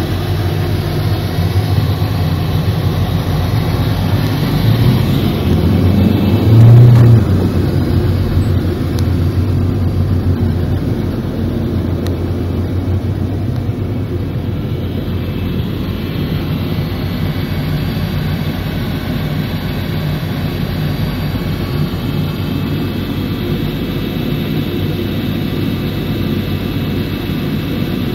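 Steady engine drone heard from inside a moving car's cabin, mixed with the idling jet engines of a nearby Boeing 747-400. A brief louder low hum rises about seven seconds in.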